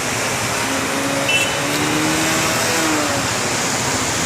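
Steady road traffic noise of passing motor vehicles.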